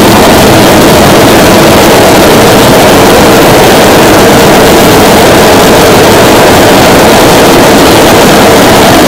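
Model F135 jet engine kit, converted from battery power to burn fuel, running with blue flames: a loud, steady rushing noise with no clear pitch.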